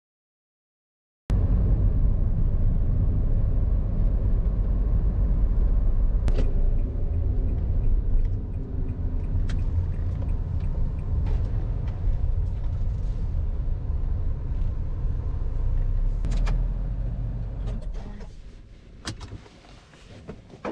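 Silent for about a second, then a Honda car's cabin fills with steady low engine and road-noise rumble while driving, with a few sharp clicks and knocks. The rumble fades over the last few seconds as the car slows into a parking lot.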